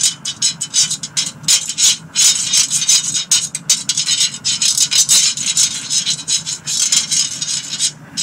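Metal spoon scraping and rubbing across the ridges of a griddle pan, spreading coconut oil, in a rapid, irregular run of scratchy strokes. A steady extractor fan hums underneath.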